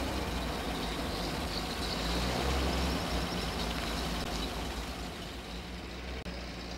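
A heavy vehicle's engine running at a steady low idle, a continuous rumble that eases slightly near the end.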